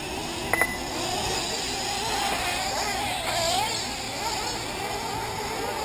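Distant high-pitched whine of 1/8-scale nitro RC engines, rising and falling in pitch, over outdoor background noise. A short double electronic beep sounds just over half a second in.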